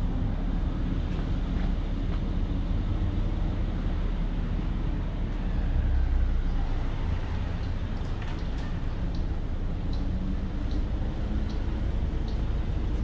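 City street traffic running steadily with a low rumble, which swells about halfway through as a vehicle passes close. Faint light ticks come at an even walking pace in the second half.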